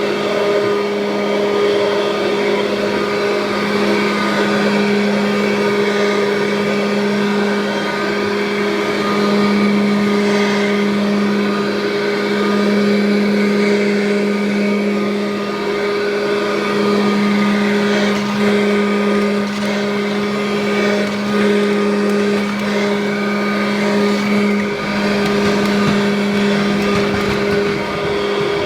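1984 Kirby Heritage upright vacuum cleaner running continuously, its motor holding a steady pitch, with the level swelling and dipping slightly.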